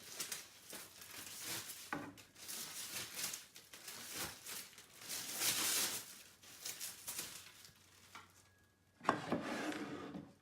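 A packaging sheet being pulled open and unwrapped, crinkling and rustling in repeated surges, with a light knock about two seconds in and a louder handling noise near the end.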